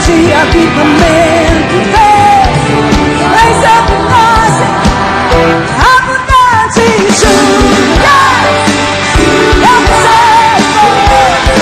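Live gospel worship song: a woman singing lead over a full band with drum kit and keyboards.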